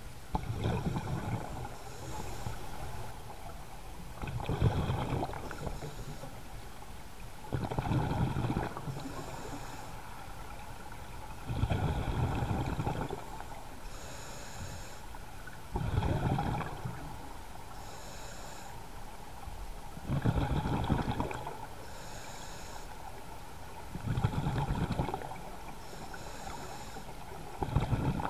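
Scuba diver breathing through a regulator underwater: a burst of bubbling exhaled air about every four seconds, with a fainter hissing inhalation between each burst.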